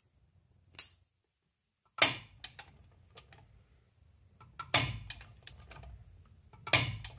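Tekton 3/8-inch split beam torque wrench, set to 50 ft-lb, clicking on a bolt: three sharp clicks a couple of seconds apart, each followed by a few lighter ratchet ticks, after a smaller click about a second in. The repaired ratchet mechanism is working and the wrench is releasing at its set torque.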